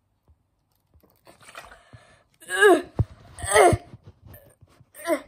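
A boy's wordless disgusted groans: two loud ones about a second apart, each falling in pitch, and a shorter one near the end, with a sharp click between the first two. They are his reaction to the horrible aftertaste of a flat, stale soda.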